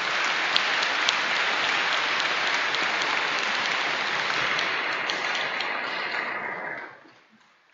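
Audience applauding in a large, echoing cathedral. The clapping holds steady, then dies away about seven seconds in, leaving a short echoing tail.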